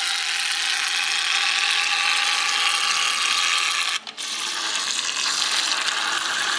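Small electric motor and propeller of a mini RC toy submarine whirring steadily as it is driven in water; it cuts out for a moment about four seconds in, then runs again.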